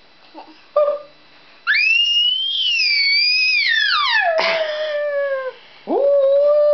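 A baby's long, high-pitched sing-song squeal that rises, wavers and then slides steadily down over about four seconds. After a short pause comes a second, lower drawn-out call that rises, holds and falls, with a brief small call near the start.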